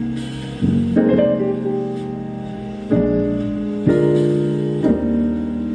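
Piano music played back through a Lenovo DS101 desktop soundbar with two small 2-inch drivers, a new chord struck roughly every second.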